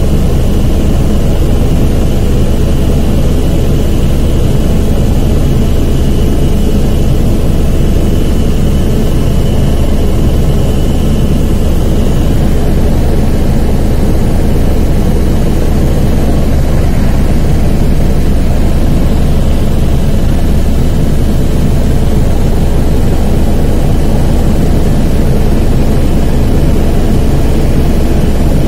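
Helicopter engine and rotor noise heard from inside the cabin: a loud, steady drone with a strong low rumble. A thin high whine sits over it and fades out about twelve seconds in.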